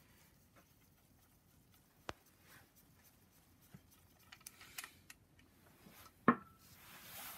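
Light metallic clicks and taps as the oil and vacuum pump drive chain is worked by hand onto its sprocket on an engine block, with one sharper metal clink that rings briefly about six seconds in.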